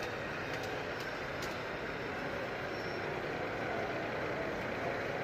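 Steady hubbub of a crowded exhibition hall: indistinct crowd chatter, with a few faint clicks about a second in.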